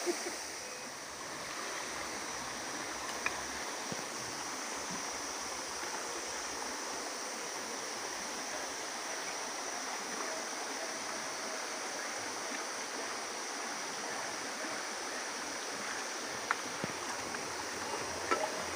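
Steady rushing of flowing water from a stream at a waterfall, with a few short clicks scattered through it.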